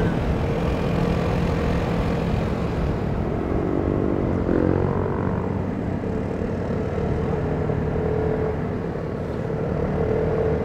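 Vespa Primavera 150 scooter's single-cylinder engine running at a steady cruising speed, its steady hum under a constant rush of wind on the microphone.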